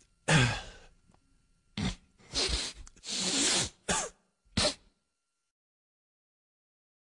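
A cartoon character's gibberish vocal outbursts: about six short grunts and exclamations in quick succession, stopping abruptly about five seconds in.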